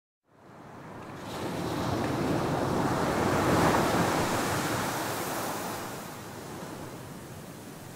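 Ocean surf washing onto a beach: the sound fades in from silence, one wave swells up over about three seconds and then slowly recedes.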